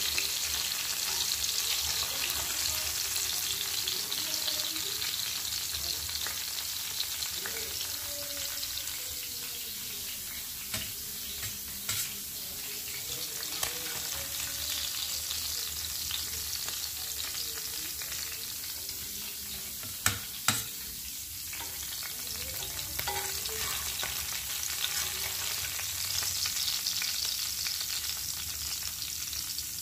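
Sardines (buthai) shallow-frying in hot oil in a pan, giving a steady sizzle, while a plastic slotted spatula scrapes under and turns them. A few sharp knocks of the spatula against the pan come about twelve seconds in and twice close together about twenty seconds in.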